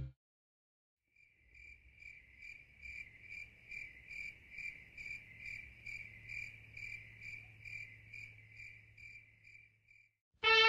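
Cricket chirping, quiet and evenly repeated at about three chirps a second over a faint low hum, starting about a second in and stopping just before the end.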